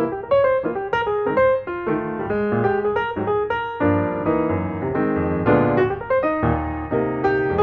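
Background piano music, a quick run of notes over steady lower chords.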